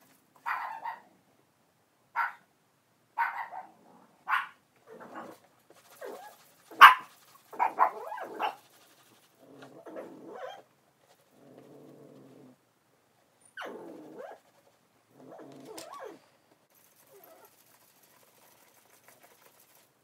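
A dog barking in short, irregular bursts, about a dozen in all, the loudest about seven seconds in, with a longer, lower sound around twelve seconds in; it stops after about sixteen seconds.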